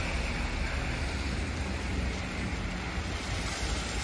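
Steady street noise of cars on a wet, slushy road, tyres hissing, with wind rumbling on the microphone.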